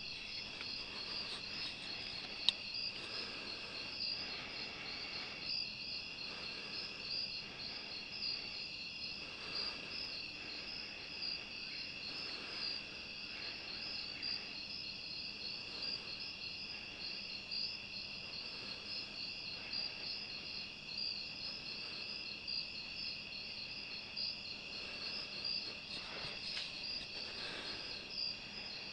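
Night chorus of crickets and other insects, a steady, rapidly pulsing high chirring, with one sharp click about two and a half seconds in.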